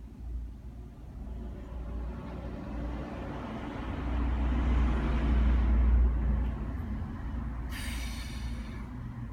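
A vehicle passing by, its rumble and road noise swelling to a peak and fading away. A short, harsh, high-pitched sound comes near the end.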